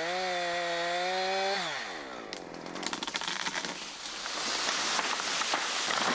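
Chainsaw running at full throttle in a cut, its revs falling away after about a second and a half as the throttle is released. Then a stretch of rustling, crackling noise with sharp snaps, swelling near the end.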